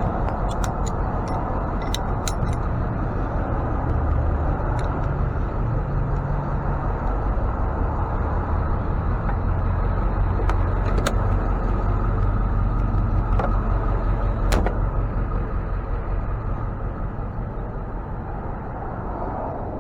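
Tow truck engine running steadily under way with road noise, a few short clicks and rattles on top.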